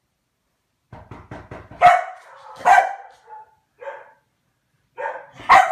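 A Komondor barking: a string of barks that starts after a quick run of short ticks about a second in, with the loudest barks about two seconds in and near the end.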